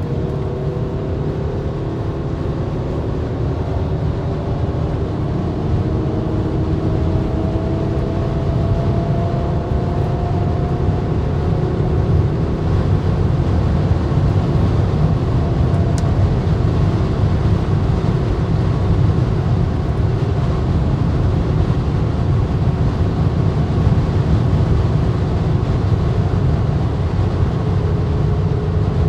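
Cabin noise of a 2010 BMW X6 xDrive40d (3-litre twin-turbo straight-six diesel) at autobahn speed: a steady low road and wind rumble. A faint engine tone rises slowly in pitch over the first ten seconds or so as the car accelerates.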